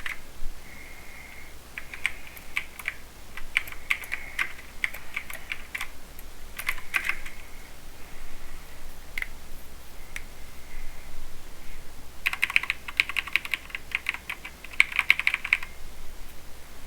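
Typing on a mechanical keyboard with Cherry MX Silver linear speed switches: irregular keystrokes, then two fast flurries of keypresses near the end.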